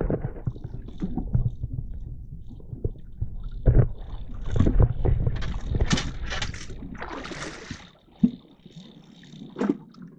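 Wind buffeting the microphone on a small boat: an uneven low rumble with a louder hissing gust about six to eight seconds in. It dies down near the end.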